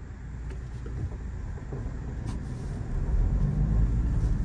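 Motor vehicle on the road: a low engine and road rumble that grows louder and steps up about three seconds in.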